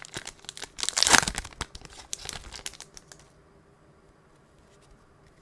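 Foil wrapper of a hockey trading-card pack being torn open and crinkled: a dense run of crackling and tearing, loudest about a second in, that stops a little past three seconds.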